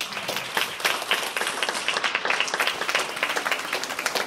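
Audience applauding: many people clapping at once, breaking out suddenly and keeping up densely.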